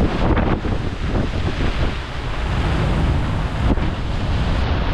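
Strong squall wind buffeting the microphone: a loud, steady rush with heavy low-pitched buffeting.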